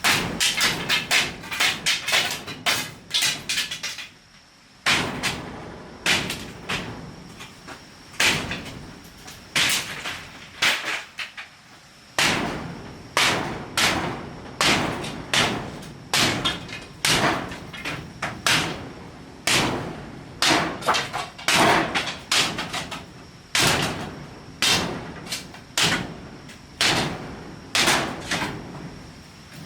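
Repeated hammer strikes, sharp knocks coming one to three a second, with two short pauses.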